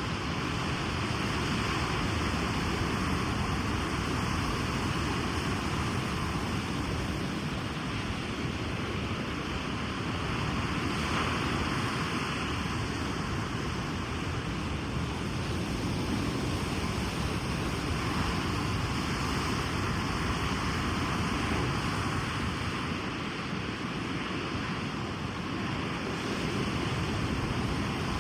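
Ocean surf washing onto a beach: a steady rush of waves that swells gently every several seconds.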